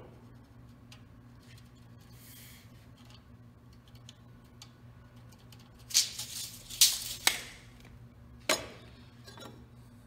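A steel tape measure blade rattling as it retracts into its case, with sharp clicks, about six seconds in; a single sharp knock follows shortly after, over a low steady hum.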